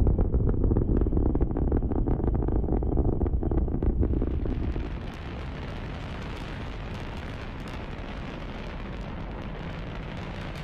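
Rocket engine exhaust noise, a steady heavy rumble. About four and a half seconds in it drops to a quieter, thinner, hissier rush.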